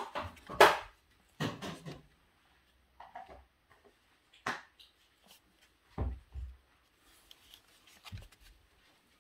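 Scattered scratches and soft knocks of a cat's paws and body against a cardboard box as it turns around inside, the loudest scrape coming under a second in, with a few dull thumps later.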